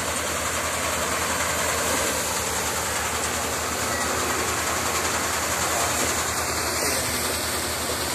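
Swan Agro paddy thresher running steadily while paddy is fed into it: a continuous mechanical din with an even hiss and a low, regular pulse.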